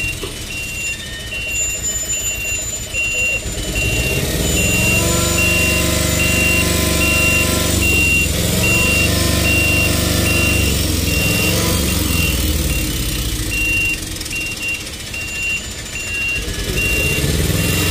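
Heavy truck engine hauling a multi-axle low-loader trailer, its pitch rising about four seconds in, holding, then dropping back about twelve seconds in, over a low rumble. A reversing alarm beeps steadily over it.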